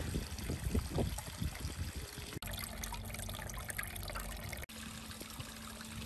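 Water trickling and splashing from the spout of a small cement garden waterfall into a shallow fish pond, with abrupt changes in the sound about halfway through and again near the end.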